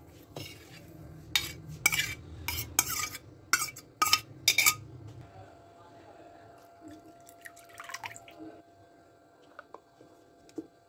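Yogurt being scraped out of a steel bowl into a plastic blender jar: a quick run of about seven short, loud scraping knocks of metal against the bowl and jar. A few faint clicks follow near the end as the lid is fitted onto the jar.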